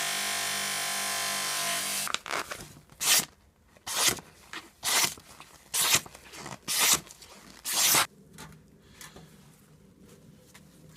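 A workshop power tool runs steadily and shuts off about two seconds in. Then come seven short rasping, rubbing strokes about a second apart, like material being worked by hand.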